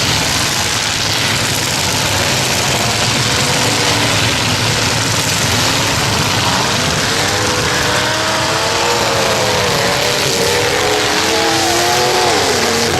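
Demolition derby trucks' engines running hard together, with one engine revving up and down in the second half.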